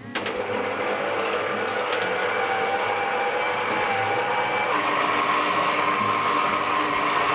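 Electric stand mixer running steadily, its beater mixing cream cheese topping in a steel bowl; the motor's whine shifts to a higher tone about two-thirds of the way through.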